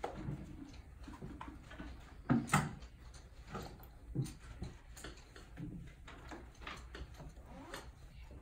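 Scattered small knocks, taps and clicks of children writing and shifting at classroom desks, with two louder knocks about two and a half seconds in.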